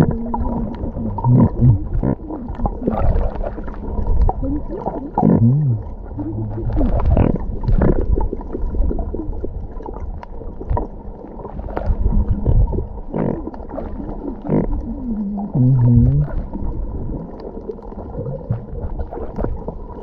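Muffled sea water sloshing and bubbling around a camera held in the water, in irregular surges, with a few low, muffled pitched glides about five seconds in and again near fifteen seconds.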